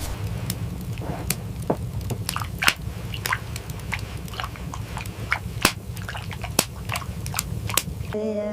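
Irregular crunching clicks, several a second, over a low steady hum; near the end a hummed tune begins.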